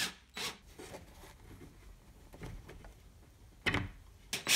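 A cordless drill-driver driving screws into a plywood pegboard panel: two short sounds at the start, a long near-quiet stretch, then short bursts of the drill starting again near the end.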